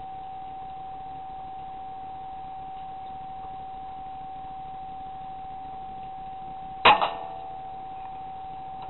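A single rifle shot about seven seconds in, a sharp crack followed a split second later by a smaller second crack. A steady high-pitched electronic whine runs beneath.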